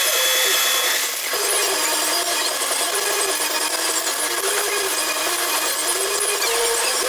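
Manual metal lathe machining: a steady harsh cutting hiss with a wavering mid-pitched tone that rises and falls.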